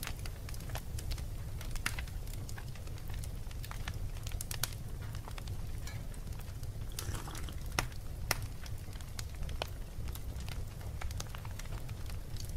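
Fireplace fire crackling: irregular pops and snaps over a low, steady rumble.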